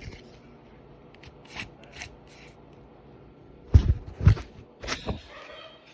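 Clicks and knocks from handling a portable generator's recoil pull-starter assembly, which has a broken cord: a few faint ticks, then several louder knocks with a dull thud about four seconds in.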